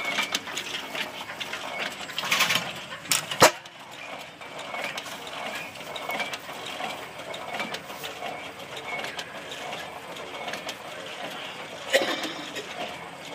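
Old 15 hp International Harvester stationary gas engine running: its exposed valve gear clicks and clatters steadily. A few sharp knocks stand out, the loudest about three and a half seconds in and another near the end.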